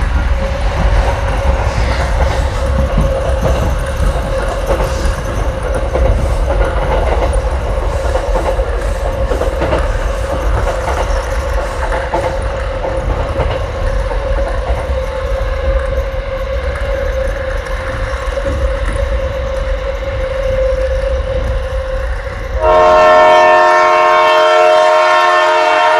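Battery-powered toy train running on a plastic track: a steady motor whine over a low rumble. About 22 seconds in, a louder electronic train-horn sound comes in and holds for several seconds.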